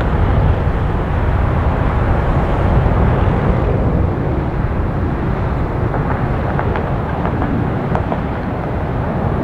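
Twin-engine jet airliner rolling out on the runway after landing, a steady distant jet rumble, with wind rumbling on the microphone.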